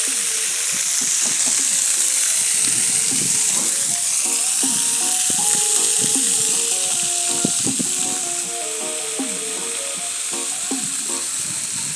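Steady rushing hiss of water pouring over a dam's waterfall, with music playing over it.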